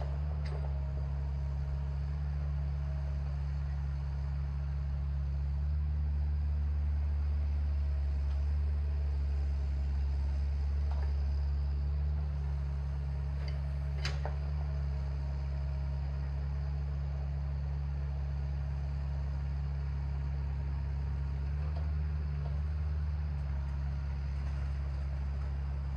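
A steady low rumble or drone with a few faint clicks, the clearest about halfway through.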